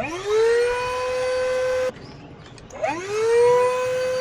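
Small electric air pump inflating an inflatable boat, switching on twice: each time its motor whine rises quickly as it spins up and then holds one steady pitch. The first run cuts off suddenly after about two seconds, and the second starts a second later.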